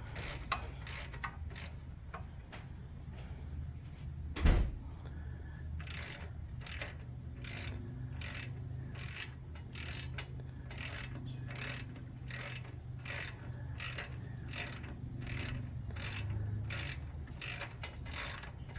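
Hand ratchet wrench clicking in a steady rhythm, about two clicks a second, as a bolt is worked loose, with one louder knock about four and a half seconds in.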